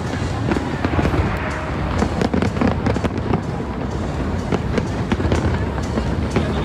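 Aerial fireworks going off in rapid succession: a steady mass of deep booms shot through with many sharp cracks.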